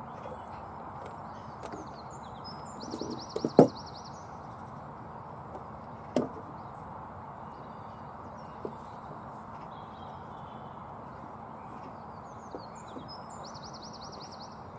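Wooden knocks as timber laths are handled on a plank floor: one loud knock about three and a half seconds in, a lighter one about six seconds in, and a faint tap later. A songbird sings a short trill twice over steady background noise.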